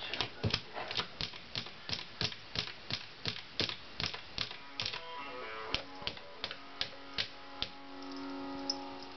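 A cat repeatedly wiping its paws on a covered plastic litter tray: sharp scratching taps in an even rhythm, about three a second. From about halfway, steady musical tones come in underneath and grow louder near the end.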